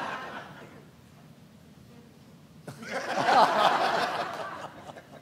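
Audience in a theatre laughing: a burst of laughter that swells about three seconds in and dies away near the end.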